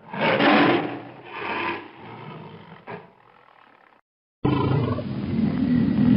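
Tiger roaring: a loud roar right at the start, a weaker one following, fading away by about three seconds. After a moment of dead silence, roaring starts again abruptly at about four and a half seconds.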